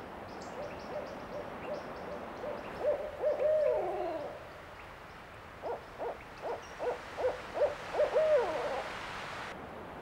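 Barred owl giving its territorial hooting call. About 3 s in comes one long hoot ending in a downward slur. From about 5.5 s a quick run of about eight short hoots ends in another drawn-out, falling hoot. Faint high chirps sound in the background.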